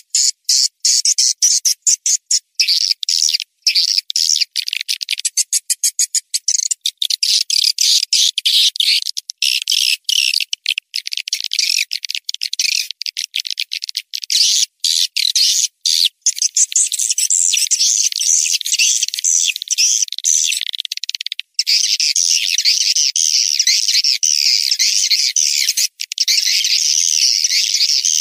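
Recorded swiftlet lure call of edible-nest swiftlets: dense, high twittering and chirping, the kind played from a swiftlet house to draw the birds in. Through the first half it is chopped by many abrupt short gaps, then it runs on more steadily.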